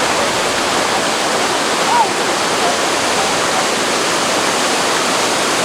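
Steady rushing of a waterfall pouring into a plunge pool.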